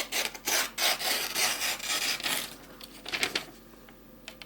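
Folding knife blade cutting through a sheet of paper: a series of short, scratchy cutting strokes, then quieter near the end. The cuts are a sharpness test, pushing the edge straight through the paper without slicing.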